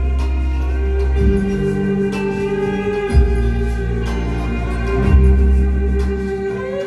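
Live band music without vocals: a violin holding long sustained notes over electric bass notes that change about every two seconds.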